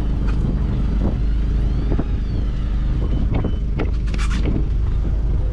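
Fishing boat's engine running steadily, a low even hum, with a few short knocks and a brief hiss about four seconds in.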